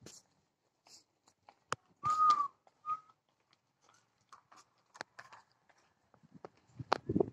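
A short, clear whistle held for about half a second and dipping at the end, then a briefer second whistle a moment later, among faint scattered clicks. A louder burst of low, rough sound comes near the end.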